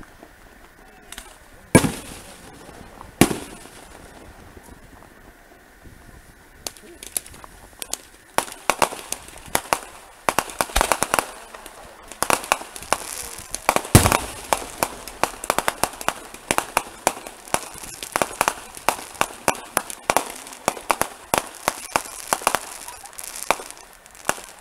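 Fireworks display: two loud shell bursts in the first few seconds, then from about eight seconds in a long run of rapid crackling pops that grows denser and continues to near the end.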